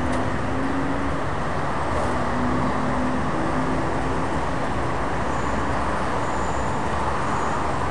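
Steady city traffic noise: many road vehicles passing on a busy avenue, with a low engine hum standing out twice.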